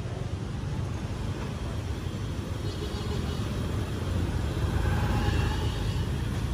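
Street traffic: a steady low rumble of passing motor vehicles, swelling slightly about four to five seconds in.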